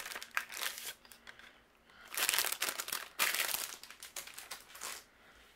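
Clear plastic bag of card bases crinkling and rustling as a card base is pulled out of it. It comes in bursts, with a short pause about a second in and the loudest rustling in the middle.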